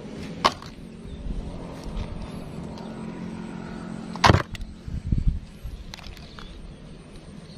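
Mud-caked toy vehicles knocking against a plastic tub and the other toys in it as they are put in: a few sharp knocks, the loudest about four seconds in, with a couple of smaller ones just after. A low steady hum runs underneath for the first half.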